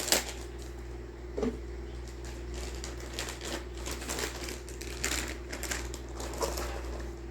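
Plastic model kit parts and packaging being handled: scattered light clicks and taps with some rustling. The sharpest click is at the very start, another comes about a second and a half in, and a faint steady hum sits underneath.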